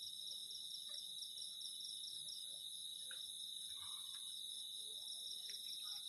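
Night insect chorus of crickets: a steady, continuous high trilling in several pitch layers, one of them pulsing rapidly, with a few faint scattered sounds underneath.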